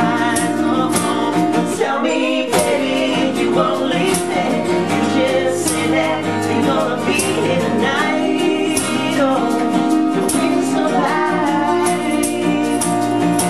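Live pop-rock band playing, with sustained singing over the instruments and steady percussion hits.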